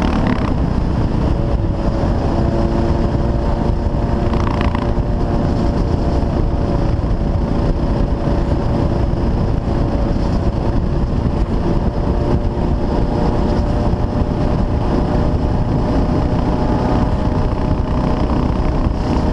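CCM R30 supermoto's Suzuki-derived 644 cc single-cylinder engine running at a steady cruise, heard close from the bike-mounted camera, with wind rushing over the microphone.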